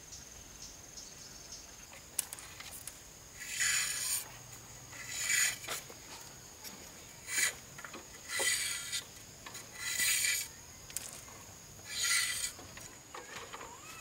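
About six rough scraping strokes, each about half a second long and coming roughly every one and a half to two seconds, with a few sharp clicks, over a steady high insect trill.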